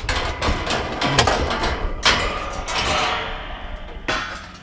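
Scrap being loaded into a pickup truck bed: a quick series of clattering knocks and scrapes, with the loudest bang about two seconds in and another about four seconds in.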